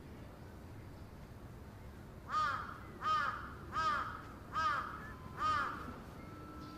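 A crow cawing five times in an even series, about one caw every 0.8 seconds, starting a couple of seconds in, over faint steady background noise.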